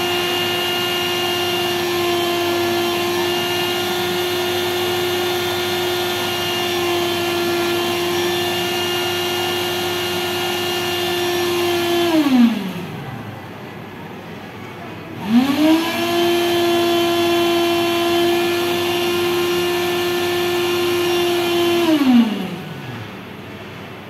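Automatic cotton candy vending machine spinning its floss head: a steady motor whine that winds down with falling pitch about twelve seconds in, spins back up with rising pitch about three seconds later, runs steady again, and winds down once more near the end.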